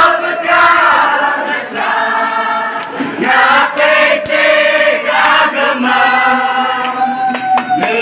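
A large group of young people singing together, holding long notes, with a few sharp claps.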